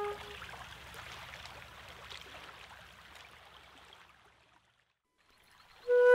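A gap between two pieces of flute music. The flute stops at the start, leaving a faint hiss with small ticks that fades to near silence. A new flute melody begins near the end.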